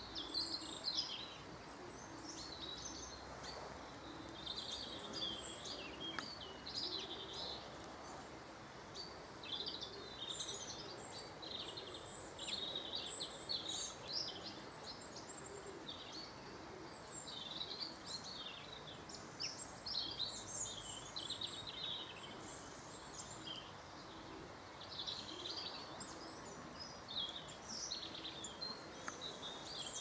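Garden birds chirping and singing in short high-pitched phrases, one after another, over steady outdoor background noise.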